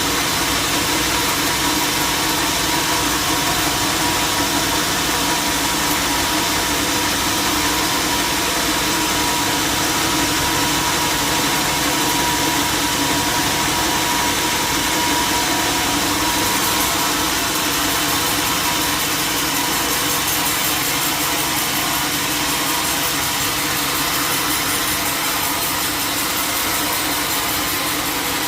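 A sawmill's engine running steadily at an even, unchanging speed.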